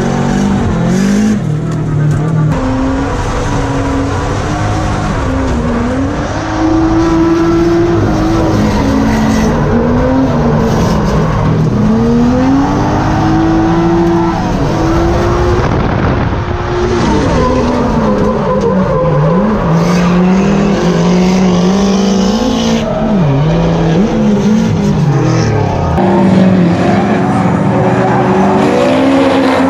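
Drift cars' engines revving hard and dropping back over and over through slides, with tyre squeal, heard first from inside a Nissan S13 and then a BMW E36. Near the end the sound changes to two cars drifting in tandem, heard from outside.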